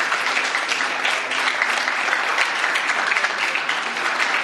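Audience applauding: steady clapping from many people, keeping an even level.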